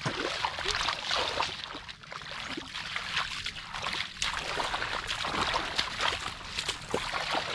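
Irregular splashing and sloshing of shallow muddy water as hands work through it to catch fish.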